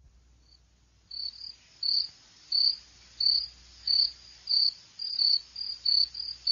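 Cricket chirping sound effect, the stock 'awkward silence' crickets: a steady series of high chirps, about one and a half a second, starting about a second in.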